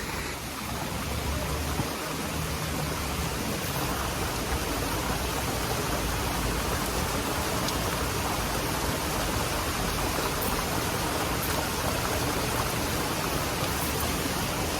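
Loud, steady rushing noise with a low rumble underneath, unbroken throughout.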